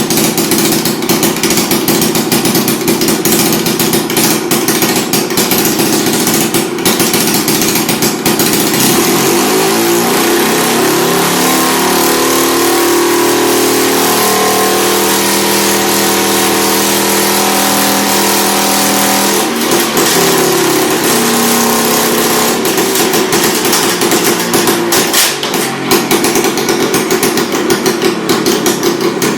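Vintage Victa 18 two-stroke lawn mower engine running loudly with a fast, rattling beat. Its engine speed shifts for a stretch in the middle before settling back.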